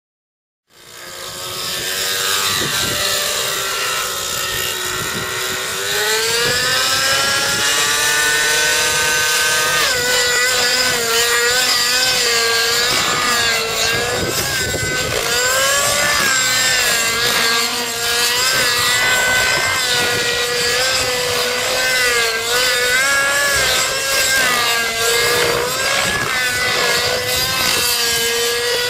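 Thunder Tiger Titan X50 3D RC helicopter's motor and rotor whine, climbing in pitch over the first several seconds, then wavering up and down without a break as the helicopter flies aerobatic manoeuvres.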